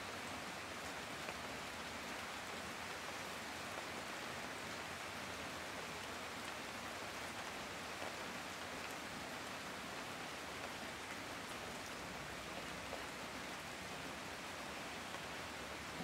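Steady heavy rain falling: an even, unbroken hiss with scattered drop taps and an occasional louder drop.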